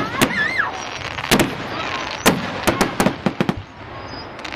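Fireworks display: a run of sharp bangs and crackling reports from bursting shells, about a dozen in all, several in quick succession from about two to three and a half seconds in.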